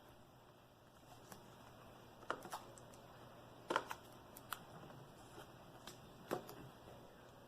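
Faint, scattered light clicks and taps from handling a laptop LCD panel and its display-cable connector, about seven in all, the loudest about four seconds in.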